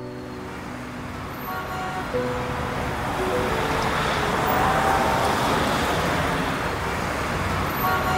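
A steady wash of dense background noise, like traffic, swelling over the first few seconds, with a few faint brief tones heard through it.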